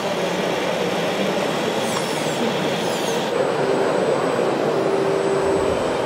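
Steady vehicle running noise from radio-controlled model vehicles, with a steady hum coming in about halfway and a few faint high chirps.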